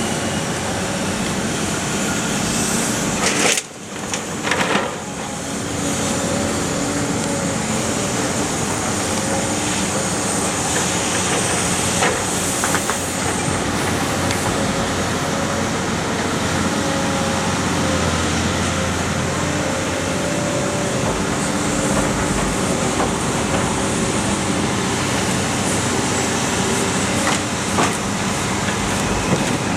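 Iron Pack car baler running with a steady mechanical drone and a few short metallic knocks; the level briefly drops about three and a half seconds in.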